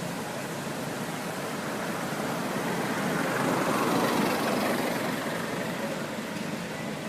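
A passing motor vehicle: a steady rushing noise that swells to a peak about halfway through and then fades.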